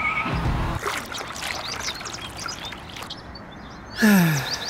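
Birds chirping in the background after a low rumble cuts off under a second in; near the end a voice slides downward in a short groan.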